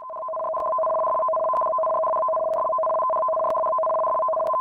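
Synthesized warning tone, two steady pitches held together like a dial tone, fading in over the first half-second and then holding evenly, sounding the tsunami warning alert of an earthquake early-warning system.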